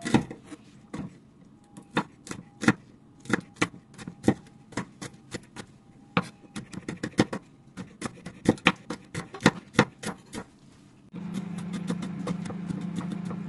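A kitchen knife chopping bird's eye chillies on a bamboo cutting board: irregular knocks of the blade on the wood, quickening into runs of several strikes a second in the middle. A steady low hum starts about eleven seconds in.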